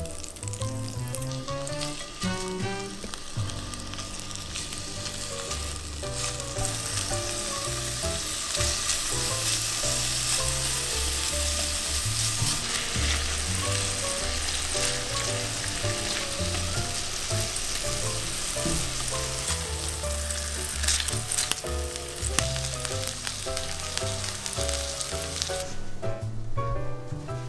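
Butter and abalone sizzling as they fry over medium heat in an enameled cast-iron skillet, with tongs stirring now and then. The sizzle builds after the first couple of seconds and drops away near the end.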